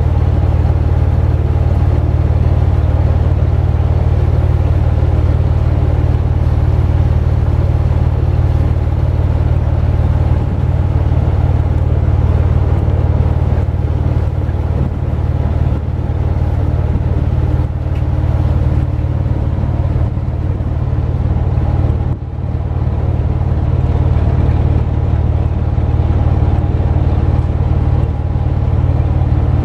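Small fishing boat's engine running steadily under way: a loud, low, continuous drone.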